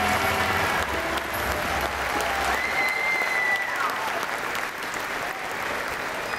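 Audience applauding after a children's choir song, fading slowly, while the last low note of the accompaniment dies away in the first seconds.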